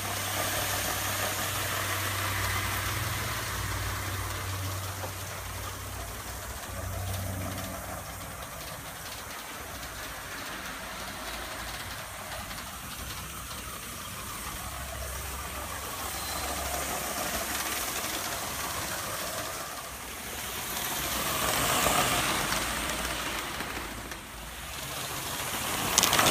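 Gauge 1 live-steam model of a Bulleid Battle of Britain Pacific running with its coaches: a continuous hiss of steam and exhaust over the wheels running on the track. It swells about two-thirds of the way through and grows louder and rattly as it passes close near the end.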